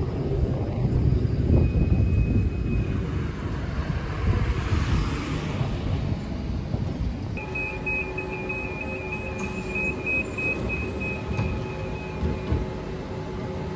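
Bombardier Flexity Outlook low-floor tram rolling past close by with a heavy low rumble and a swell of hiss as it goes by. From about halfway, a steady electrical hum and a rapid high beeping tone sound for about five seconds, then the beeping stops.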